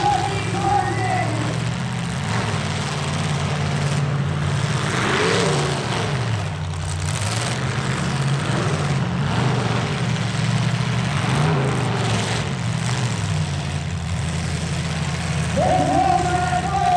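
Engines of stock pickup trucks in a demolition derby running steadily at idle, with a brief rev about five seconds in and again about eleven seconds in.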